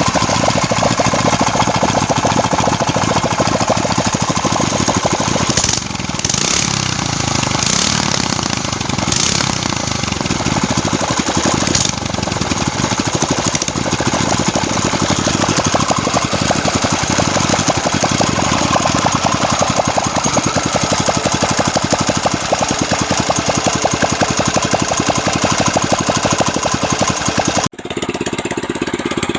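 Ketinting longtail-boat engine running steadily with a fast, even firing rhythm. Near the end the sound cuts out for an instant and carries on with a changed tone.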